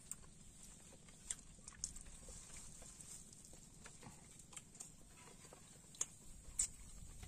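Faint eating sounds: a person chewing grilled fish and rice eaten by hand, with scattered small smacks and clicks.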